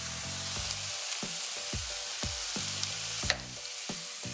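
Ground beef sirloin sizzling in a frying pan, a steady hiss, with a sharp click about three seconds in after which the sizzle is quieter. Background music with a steady beat runs underneath.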